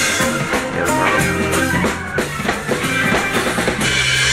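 Live funk band jamming: a drum kit keeping a steady beat with bass and guitar playing along.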